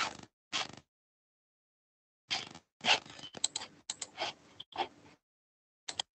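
Short bursts of rustling and scraping through a video-call participant's microphone, a brief one at the start, a longer cluster from a little after two seconds in to about five, and a last short one near the end. Between the bursts the sound drops to dead silence, as the call's noise suppression cuts the microphone off.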